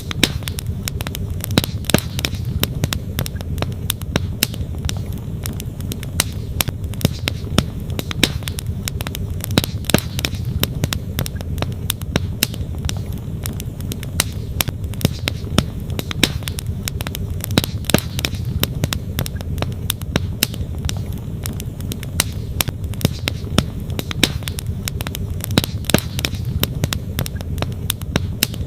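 Wood campfire crackling, with frequent sharp, irregular pops and snaps, over the steady low rush of a flowing stream.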